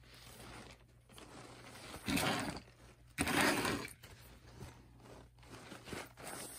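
Hands handling a plush Loungefly Sanrio crossbody bag and its faux-leather strap: soft rustling and rubbing, with two louder scraping rustles, one about two seconds in and one just after three seconds.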